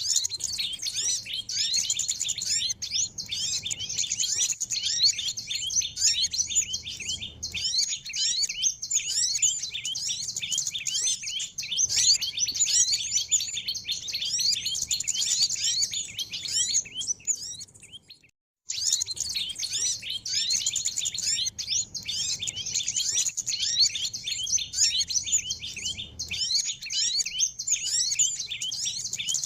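Dense, unbroken twittering and chirping of many small birds, a bird-lure (pikat) track for drawing in small birds. The chirping cuts out for a moment about eighteen seconds in, then resumes.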